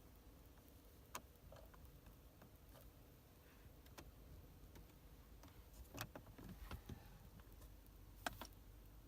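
Near silence: room tone with a few faint, scattered clicks, a cluster of them about two-thirds of the way in and one a little louder near the end.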